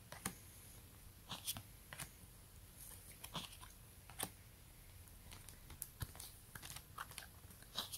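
Pokémon trading cards being flipped through by hand, each card slid off the front of the stack: faint, irregular papery clicks and flicks.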